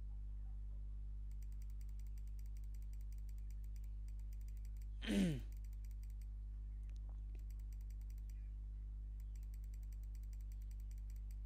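Steady low hum of the recording chain, with one brief falling vocal sound, like a murmured 'hmm', about five seconds in and a few faint computer clicks a little later.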